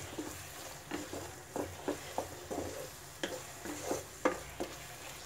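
A wooden spatula stirring a thick masala paste with green peas in a nonstick kadai, in irregular scraping and tapping strokes about twice a second, over a faint sizzle of the paste frying in its oil.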